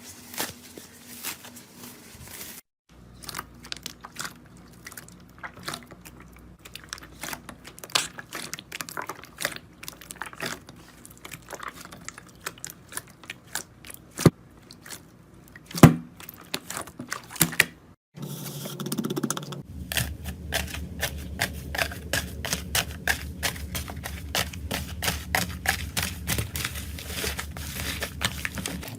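Slime being squeezed, stretched and poked by hand, making sticky crackling and popping clicks. About two-thirds of the way in the clicks turn dense and rapid over a steady low hum.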